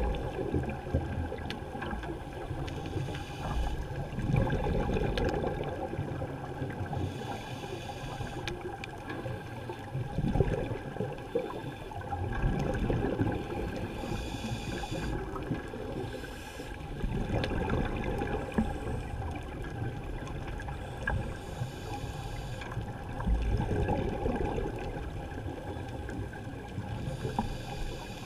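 Scuba diver's regulator breathing heard underwater: a short hiss on each inhalation about every five to six seconds, each followed by a longer low bubbling as the exhaled air escapes.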